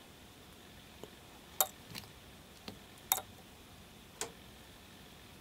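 Irregular sharp metallic clicks, about seven of them, from the small steel parts of a vintage Craftsman ratchet, its pawl with spring and ball, being handled and fitted between the fingers.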